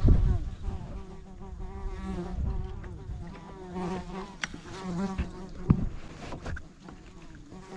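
A flying insect buzzing close to the microphone, its drone wavering in pitch as it circles. A few light knocks sound through it, the sharpest a little before six seconds in.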